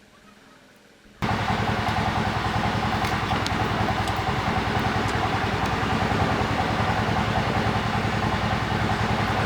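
A steady, engine-like running noise that cuts in suddenly about a second in after a quiet start and holds at an even level.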